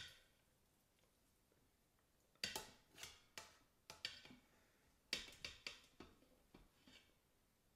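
Metal kitchen tongs clinking and scraping against the stainless steel inner pot of an Instant Pot while lifting out a cooked pot roast. There is a sharp click right at the start, then a few clusters of clinks from about two and a half seconds in.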